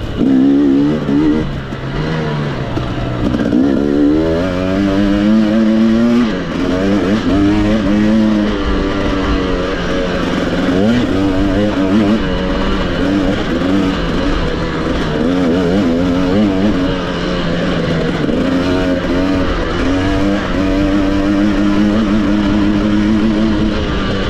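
Racing engine at full throttle, its pitch climbing and dropping several times as it runs up through the revs and eases off.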